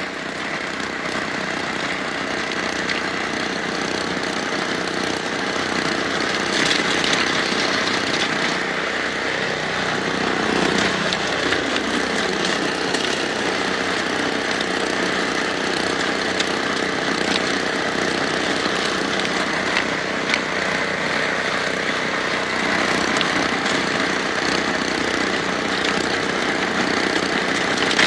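Snowblower with a swapped-in Harbor Freight Predator engine on a stage 1 exhaust, running steadily and loudly; its pitch dips briefly about ten seconds in.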